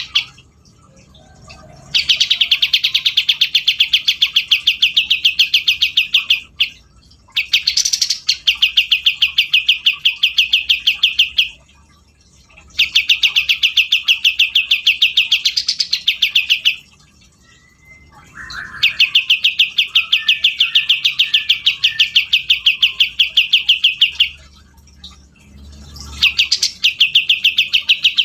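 Cucak jenggot (grey-cheeked bulbul) singing in long, rapid, evenly pulsed trills, five bouts of four to five seconds each separated by short pauses.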